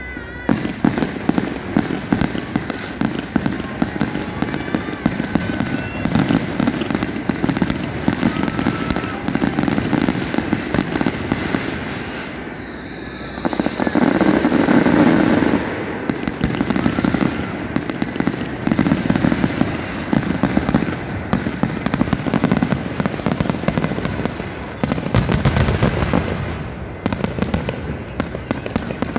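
Aerial fireworks bursting in rapid succession: dense crackling and popping with heavier booms. Loudest about halfway through and again near the end.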